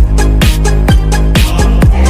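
Background electronic dance music with a steady kick drum about twice a second over a sustained bass line.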